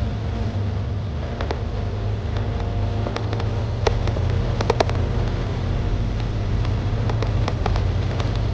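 Motorcycle riding over a loose gravel road: a steady low rumble with scattered sharp clicks and ticks of stones under the tyres, thickest in the middle of the stretch.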